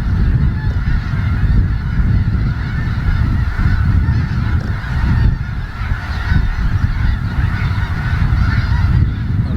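A large flock of snow geese calling all at once: a dense, continuous chatter of many overlapping high honks and yelps, over a steady low rumble.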